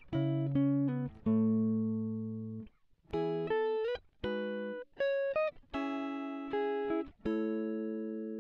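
Background music: a solo guitar playing a run of chords and single notes. Each is struck and left to ring out, and a few notes slide in pitch.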